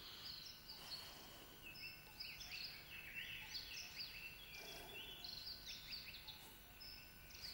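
Faint birds chirping in woodland: many quick, high calls overlapping throughout.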